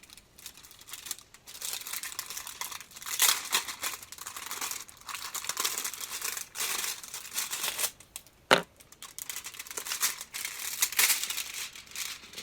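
Packaging of a new table tennis rubber sheet crinkling and tearing in irregular spurts as it is unwrapped by hand. There is a single sharp click about two-thirds of the way through.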